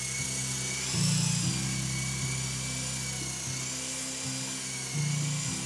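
Micro co-axial electric RC helicopter's motors and rotors whirring in flight: a steady high whine that wavers slightly in pitch, growing louder about a second in and again near the end.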